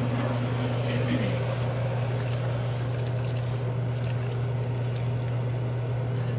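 Pot of seaweed soup boiling on the stove, with a steady low hum behind it.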